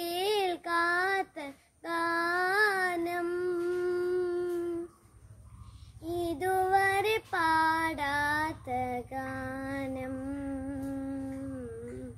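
A boy singing solo without accompaniment: a slow melody of long held notes, some with a quick wavering ornament, broken by a short pause about five seconds in.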